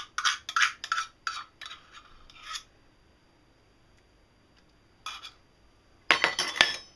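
A utensil scraping mayonnaise out of nested stainless-steel measuring cups into a glass bowl, in a quick run of short scrapes and clinks for about two and a half seconds. After a pause, a short scrape, then a louder clatter of metal near the end.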